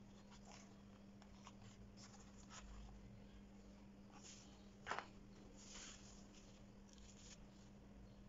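Faint scratching and rustling of fingers handling and pressing a sandal, with one sharper click about five seconds in, over a steady low hum.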